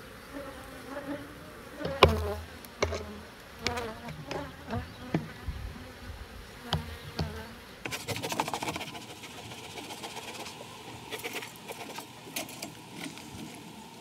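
Honeybees buzzing around an open hive. A run of sharp knocks and clicks from a hive tool prying and shifting the wooden frames, with a few more clicks near the end.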